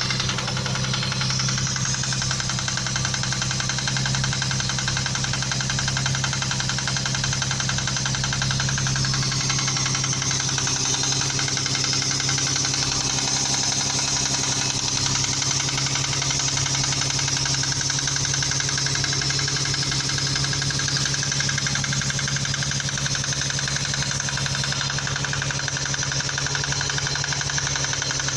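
Engine idling steadily with a rapid, even knock running through it; the knock's source is unknown and is being traced.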